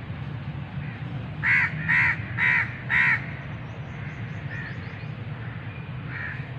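A bird calling four times in a row, the calls about half a second apart, with a couple of fainter calls and faint high chirps later, over a steady low hum.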